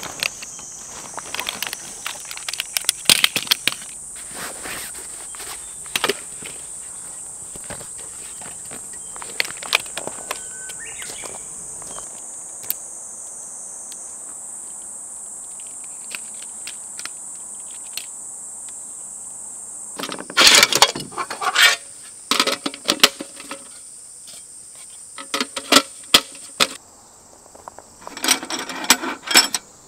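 Insects droning steadily in a high, continuous buzz, with scattered sharp clicks and knocks that come in louder clusters about two-thirds of the way through and again near the end. The insect drone drops away shortly before the end.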